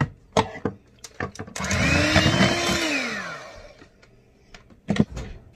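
Electric hand mixer beating batter for about two seconds, its whine rising as it spins up, holding steady, then falling away as it winds down. A few sharp knocks come before and after it.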